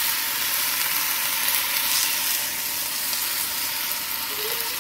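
Blended tomato salsa sizzling steadily in a hot frying pan as it is poured over fried tortilla pieces, the hiss easing slightly toward the end.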